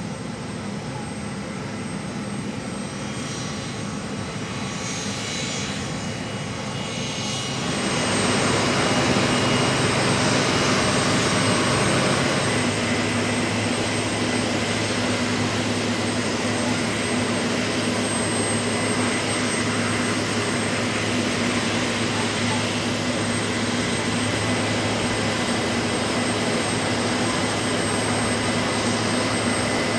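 Aircraft turbine engines running: a steady jet whine with several held high tones over a low hum. It grows louder about eight seconds in and then holds steady.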